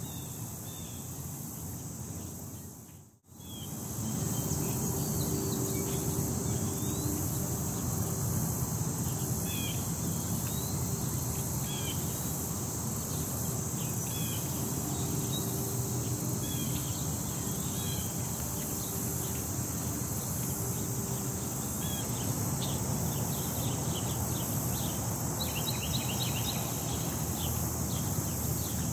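Gusty wind rumbling on the microphone under a steady high-pitched drone, with scattered short bird chirps and a quick run of them near the end. The sound drops out briefly about three seconds in.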